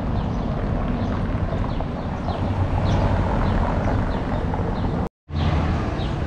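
City street ambience: a steady low rumble of traffic and wind on the microphone, with a faint high chirp repeating about every half second. The sound drops out completely for a split second about five seconds in.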